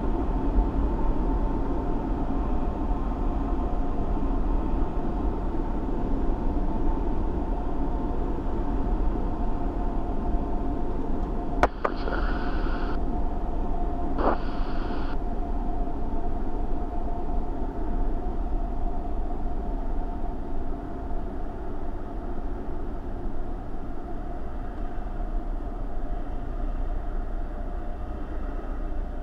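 Cessna 172's piston engine and propeller droning steadily, heard inside the cockpit. There is a sharp click about twelve seconds in, and two short bursts of hiss follow.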